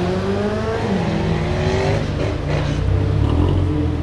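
BMW S85 5.0-litre naturally aspirated V10 engine accelerating at low speed. The engine note rises for about the first second, then drops back and settles to a lower, steady running note as the car rolls past.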